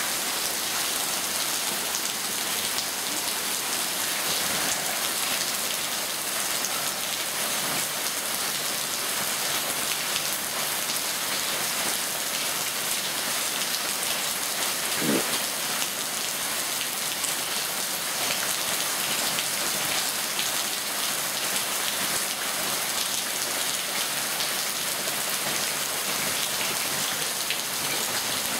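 Steady rain falling on paving and garden, an even hiss, with a single brief thump about halfway through.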